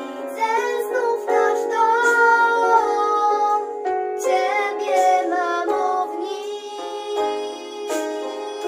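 Two young girls singing a song together over an instrumental backing track.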